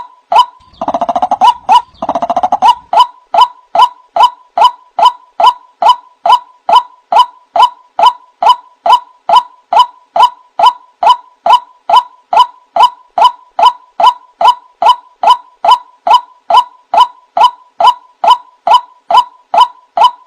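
White-breasted waterhen (ruak-ruak) lure call: a short, sharp call repeated evenly about twice a second without a break. Two longer, harsher, lower bursts come about one and two seconds in.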